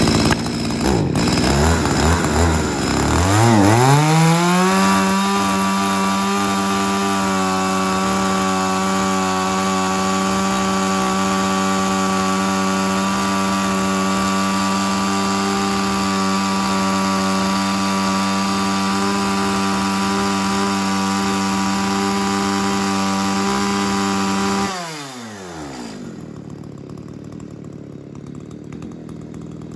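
Echo GC36 36cc two-stroke chainsaw started and revved up, its pitch climbing unevenly over the first few seconds. It then holds a steady high-revving run. About 25 seconds in the throttle is let off and the engine falls quickly to a quieter, lower idle.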